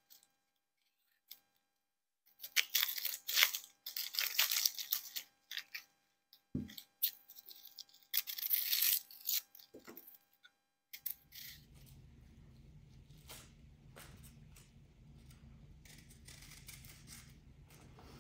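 Dry, papery onion skins crackling and tearing as they are peeled off yellow onions with a small knife, in a few short spells with pauses between.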